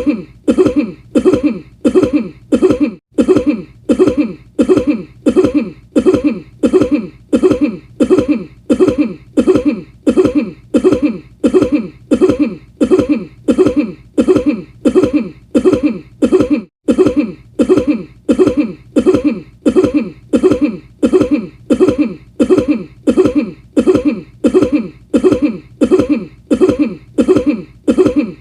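The same short cough repeated over and over as a loop, at an even pace of about three coughs every two seconds.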